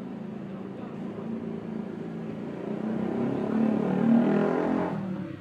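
A motor vehicle's engine running and growing louder as it comes close, loudest about four seconds in, then dropping away sharply near the end.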